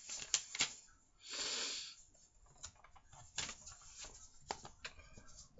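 Soft rustles and sharp clicks of a paperback book's pages being handled, with a louder hiss lasting under a second about a second and a half in.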